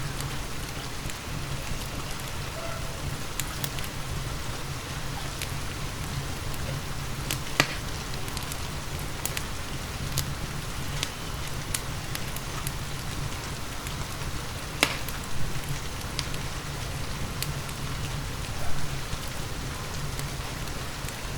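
Steady rain with a wood fire crackling in a fireplace, a low steady hum underneath, and scattered sharp pops from the burning wood, the loudest about a third of the way in and twice more in the second half.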